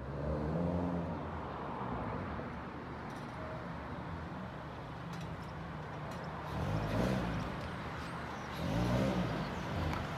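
Lowered Toyota Corolla's engine as the car pulls in slowly. It runs low, with short swells that rise and fall in pitch near the start and about seven and nine seconds in.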